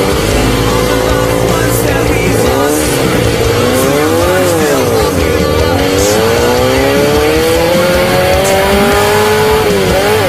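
Off-road desert race vehicle's engine running hard at high revs, the pitch dropping sharply and climbing back about four seconds in and again near the end as the throttle is lifted and reapplied, over a rough rumble with scattered sharp ticks.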